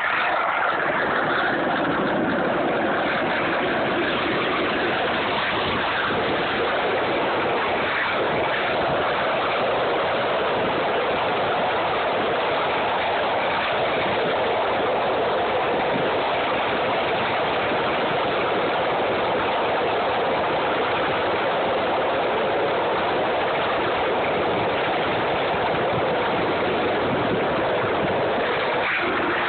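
Steady rushing rumble of wheels rolling along rough asphalt while moving down the street, unbroken and even in level throughout.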